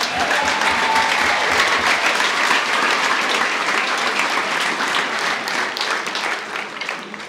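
Crowd applauding a player's introduction: many hands clapping together, tailing off near the end.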